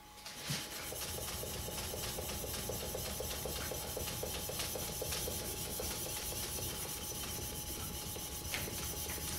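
Steel plane blade scraping back and forth on wet abrasive film over plate glass in quick, even strokes: the back of a new plane iron being flattened as metal is ground off.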